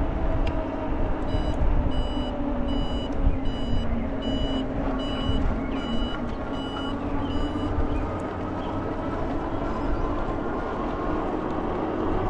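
A high electronic beep repeats about one and a half times a second, some ten times, and stops about eight seconds in. Under it runs a steady hum with a low rumble of riding.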